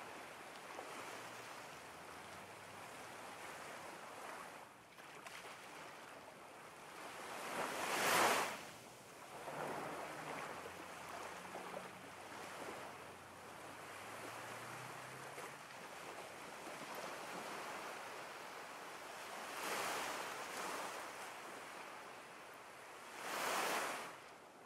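Ocean waves washing on a shore, with three louder breaks that swell and fade, the loudest about eight seconds in and two more near the end.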